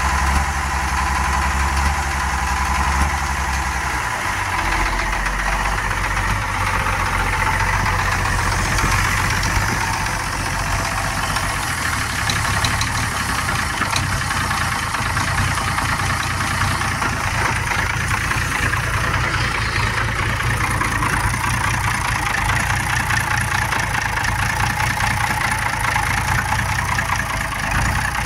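International Harvester UD-236 diesel engine in an old motor grader, running steadily at idle; its low note shifts about four seconds in, then holds steady.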